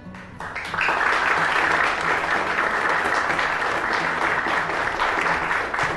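Audience applauding, a dense steady clapping that starts about half a second in and keeps on without a break.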